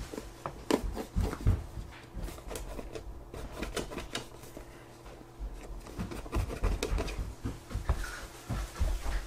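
Scattered light knocks, taps and rustles of things being handled, among them a cardboard phone box stood on a table, over a faint steady hum.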